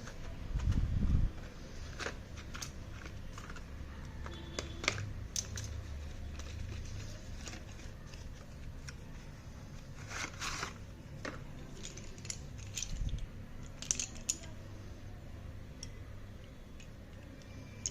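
Close-miked handling of a parcel of mini slate pencils: scattered crinkles, small clicks and crunches of packaging and pencils, with a low thump about a second in and brighter crinkly bursts around ten and fourteen seconds in.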